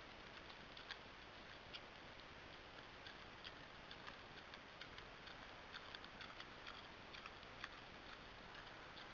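Near silence: a faint steady hiss with irregular soft clicks, about one or two a second, from a wild boar feeding with its snout at the ground.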